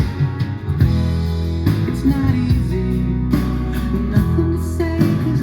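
Recorded music played through Cerwin-Vega 2000/12 loudspeakers driven by a freshly repaired Adcom GFA-555 power amplifier: a guitar song with strong, steady bass and a regular beat, the amplifier working after the repair.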